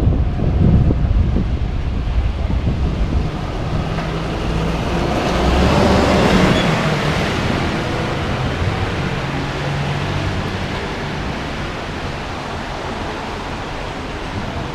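Wet road noise while riding a bicycle in the rain: wind buffeting the microphone and tyre hiss on wet tarmac, with a vehicle passing that swells and fades, loudest about six seconds in.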